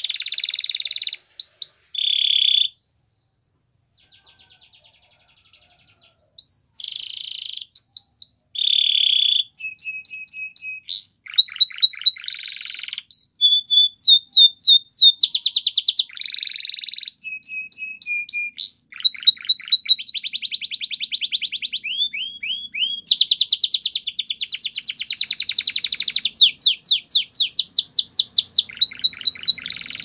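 Canary singing a long, high-pitched song of fast trills and rolls, with runs of quick downward-sweeping notes, broken by a silent pause of about two seconds a few seconds in.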